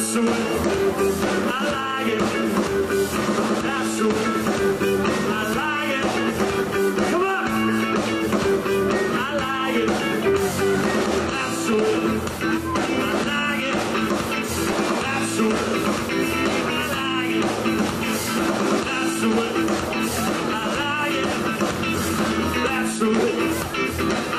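Live rock band playing a song, with electric guitars prominent.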